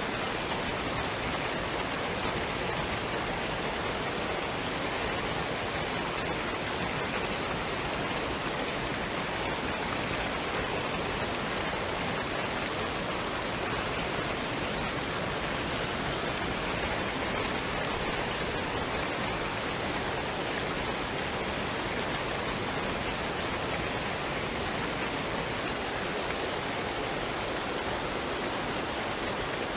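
Waterfall and stream water running in a steady, even rush, with no changes.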